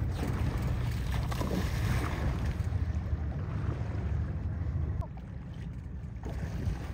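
Wind rumbling over a phone microphone on a boat at sea, with water lapping; the rumble eases about five seconds in.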